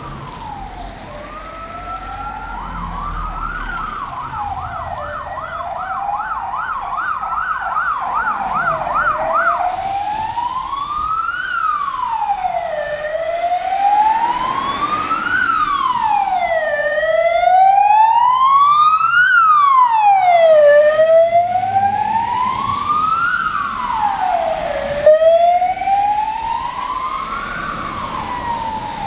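Sirens of a SMURD ambulance and fire engines passing close. A wail rises and falls about every four seconds, and a fast yelping siren overlaps it for the first ten seconds or so. The sound peaks as the vehicles go by, with a brief sharp knock near the end.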